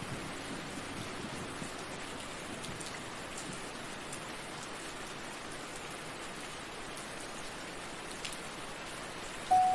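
Steady calm rain, an even hiss with faint scattered drop ticks. Near the end, sustained music notes come in over it.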